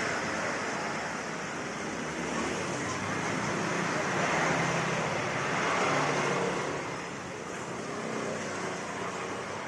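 Road traffic noise: a steady wash of passing vehicles, swelling and fading slowly.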